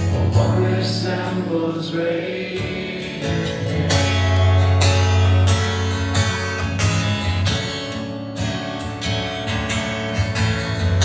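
A song with strummed acoustic guitar over a steady bass line, played back through Dayton Audio Classic T65 floorstanding tower speakers.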